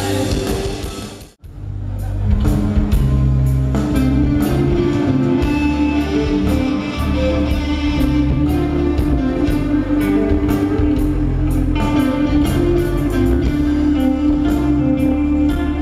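Heavy rock band playing live, with distorted guitar, bass and drums, and cymbal strikes about two or three a second. The sound cuts out briefly about a second in and comes back as a new song.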